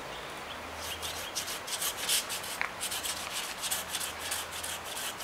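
Hand saw cutting through a tree limb in a steady rhythm of rasping strokes, about three or four a second.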